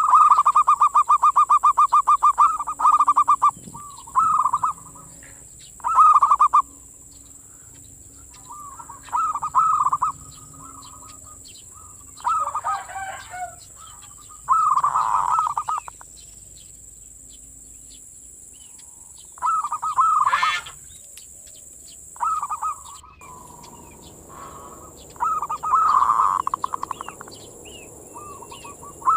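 Zebra dove (perkutut) singing its manggung song: phrases of quick cooing notes repeated every few seconds, the first a long fast run of about three seconds.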